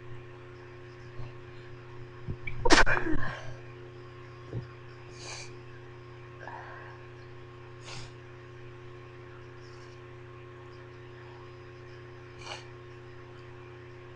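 A woman's stifled sneeze about two and a half seconds in, a sudden held-in burst, followed by a few short sniffs, over a steady low electrical hum.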